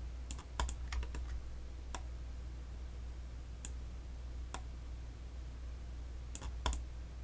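Irregular clicks of a computer keyboard and mouse: a quick cluster in the first two seconds, then single clicks spaced a second or more apart, and a pair near the end.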